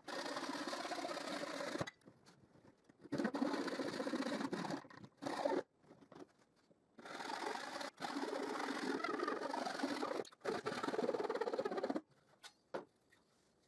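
ProfCut hand saw cutting a thin wooden strip with quick back-and-forth strokes, in several runs of a few seconds broken by short pauses. The last run ends about two seconds before the end, as a triangle is sawn off.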